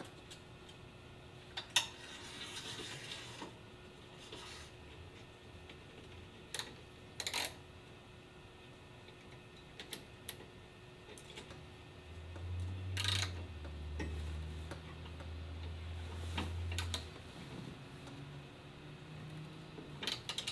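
Scattered small metallic clicks and taps of button head screws, lock washers and roll-in T-nuts being handled and fitted by hand into an aluminium extrusion frame. A low hum rises for several seconds in the middle.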